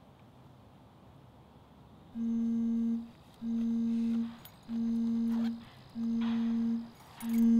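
Mobile phone vibrating in a leather handbag: a low buzz in pulses of just under a second, starting about two seconds in and repeating about once a second. The fifth pulse, near the end, is louder, with the bag rustling as it is searched.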